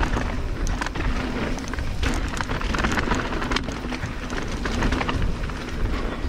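Mountain bike riding down a loose dirt trail: tyres crunching over dirt and stones, with many small rattles and clicks from the bike. Wind rumbles on the microphone.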